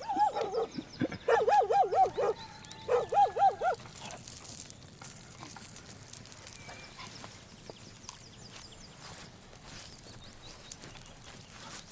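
A dog whining in high, fast-wavering cries, in three runs over the first four seconds, then only faint ticks.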